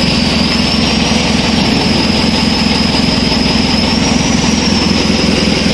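Isuzu 4HL1 four-cylinder diesel engine idling steadily with its rebuilt injectors, now holding idle after a hard-starting, stalling fault; a high whine sits over the engine sound.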